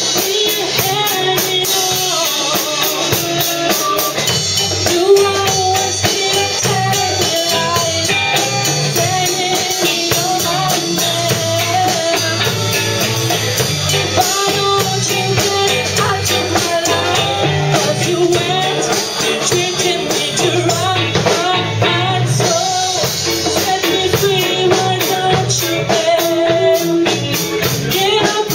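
Live band playing a reggae-style arrangement: drum kit, electric bass, electric guitar, keyboard and djembe, with a woman singing the lead.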